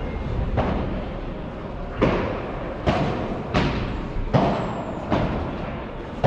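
A padel rally: a string of about seven sharp pops as the ball is struck by solid padel rackets and bounces, coming roughly every three-quarters of a second in the middle of the stretch. Each pop rings on briefly in the echoing indoor hall.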